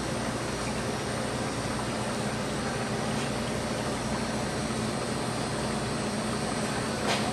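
Steady mechanical hum and rushing air noise from running kitchen equipment, unchanged throughout, with one brief tap near the end.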